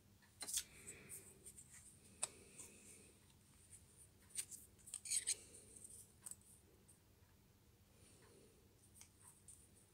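Faint handling noise of a lathe parting-off blade and its toolholder held in the hand: scattered light metallic clicks and taps, with a cluster about five seconds in.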